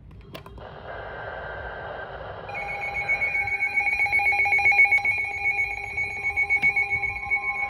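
Electronic emergency alert tone: steady high-pitched tones with a fast pulsing, coming in about two and a half seconds in after a short rise of hiss.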